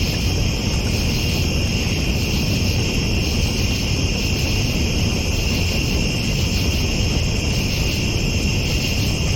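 A steady chorus of night insects trilling without a break in several high pitches, over a constant low rumble.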